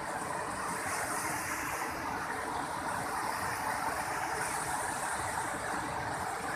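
Ganges river rapids rushing past: a steady, even roar of fast whitewater.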